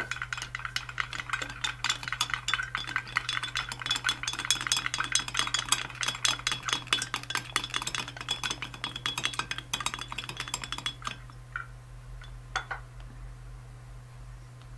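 A wooden stick stirring water and food colouring in a tall glass vase: rapid clinking taps against the glass, each ringing briefly. The fast tapping stops about eleven seconds in, leaving a few scattered taps.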